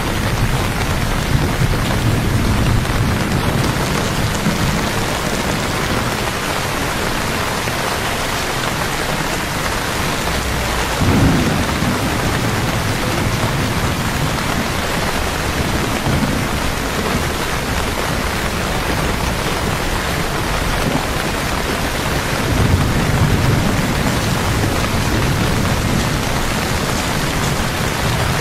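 Steady heavy rain falling on a wet street, with low rumbles swelling up now and then, the strongest about eleven seconds in and again a little past twenty seconds.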